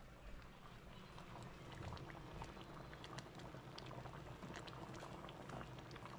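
Pot of stew peas simmering on the stove, the thick bean stew bubbling with a faint, steady patter of many small pops.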